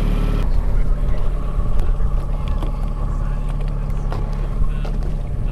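Fishing boat's motor running steadily at trolling speed, a constant low hum with a few faint ticks over it.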